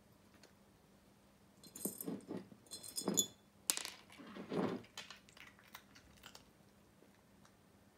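Small glass jar clinking and knocking on a wooden floor as a cat noses into it after dry treats, the treats rattling against the glass. A cluster of bright clinks about two seconds in, a sharper knock near the middle, then a few faint taps.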